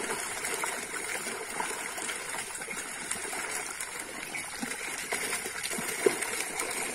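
Pond water splashing and churning as a crowd of fish thrash inside a drag net being hauled in, a steady wash of splashing with one sharper splash about six seconds in.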